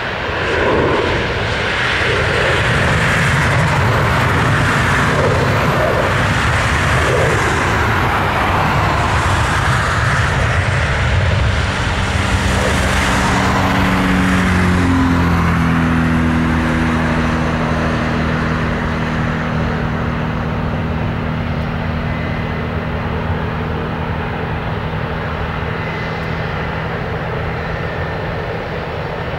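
Airbus A320 jet engines during the landing rollout: a loud, steady roar as the airliner decelerates on the runway. About halfway through, a set of engine tones drops in pitch as the engines wind down toward idle, and the noise then eases off.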